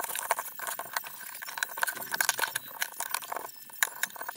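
Irregular clinks, clicks and rustling as a leather saw sheath with a metal buckle and rivets is handled and buckled around a crosscut saw blade.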